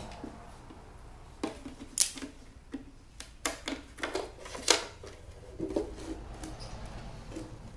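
Sharp clicks and snaps of hard plastic, about a dozen in quick succession, then a few duller knocks, as a small JBL computer speaker's plastic cabinet is prised open by hand.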